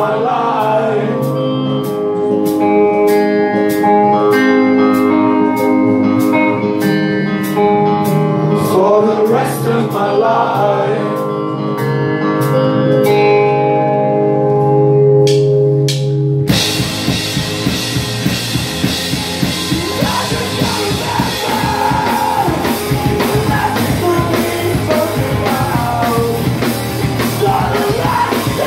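Live rock band playing: a softer opening of sustained chords with a steady tap on the cymbals and a male voice singing, then about halfway through the full band crashes in with loud, dense guitars and drums under the vocals.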